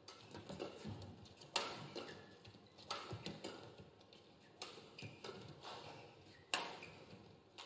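Badminton rackets striking the shuttlecock in a doubles rally, four crisp hits about one and a half seconds apart, with fainter knocks and scuffs of footwork between them.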